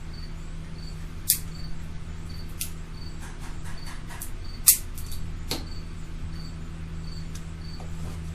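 Steady low hum with a faint high cricket chirp repeating about twice a second, and a few sharp clicks, the loudest about halfway through, as a drinking straw is pushed into a glued corner to scoop up the wet glue squeeze-out.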